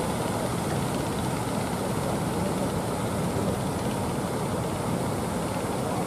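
Heavy surf breaking on a beach: a steady, even rush of water noise with no single wave standing out.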